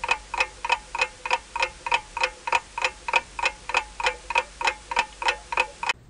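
Clock-like ticking sound effect, evenly paced at about three and a half ticks a second, each tick short and pitched. It stops abruptly near the end.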